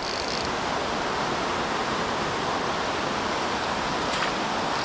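Steady rush of flowing creek water, running at an even level, with one faint click about four seconds in.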